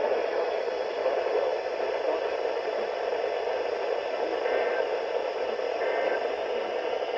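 Steady radio static: even hiss from a radio picking up no clear signal, with a couple of faint, brief tones buried in it.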